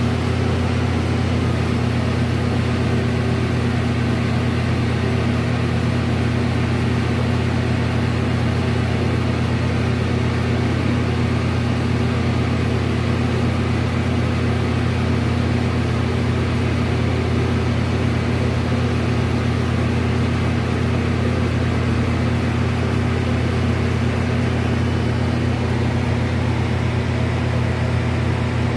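A steady low machine hum with a constant pitch and no change in level.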